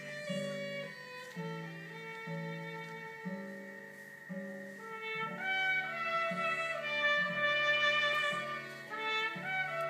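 Live acoustic trio: an acoustic guitar playing repeated chords under a violin melody, with a brass instrument, likely a trumpet, joining; the melody grows louder and climbs higher about halfway through.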